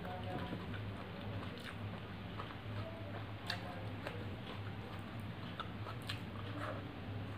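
Close-up eating sounds: chewing and mouth noises, with scattered sharp clicks as fingers mix rice and fish curry on a metal plate. A steady low hum runs underneath.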